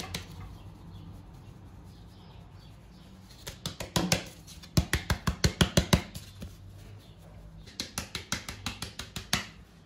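Flour being sifted through a hand sieve: three runs of rapid knocks, about six a second, as the sieve is shaken and tapped, the first starting about three and a half seconds in, over a faint steady hum.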